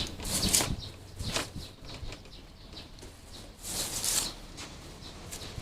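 Irregular bursts of rustling, buffeting noise on the microphone, three louder gusts with quieter rustle between, and no steady motor tone.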